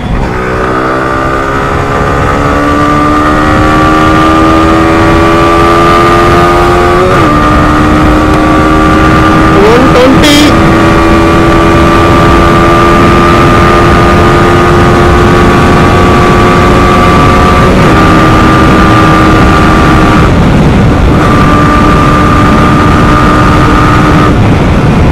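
Yamaha R15 V4's single-cylinder engine at full throttle in a top-speed run, heard from the rider's seat with a loud wind rush. Its pitch climbs steadily, drops sharply with an upshift about seven seconds in, then rises slowly as the bike holds near 130 km/h, with further drops and brief breaks in the note later on. A short sharp noise cuts in about ten seconds in.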